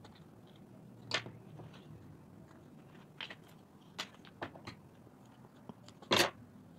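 Leather pieces and a small pointed hand tool handled on a tabletop: a few scattered clicks and short crunchy scrapes, the loudest near the end.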